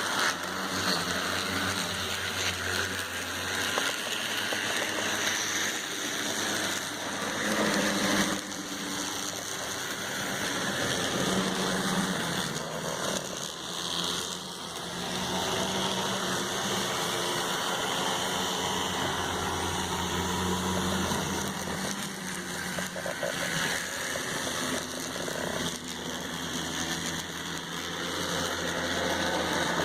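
N scale model train running on the layout: the locomotive's small electric motor whirring steadily, with a low hum that swells and fades.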